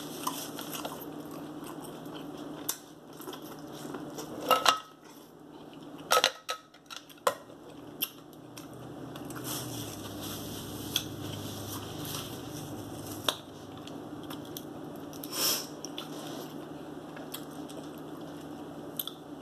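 A person eating at a table: chewing, with scattered sharp clicks and clinks of cutlery and dishes over a steady low hum.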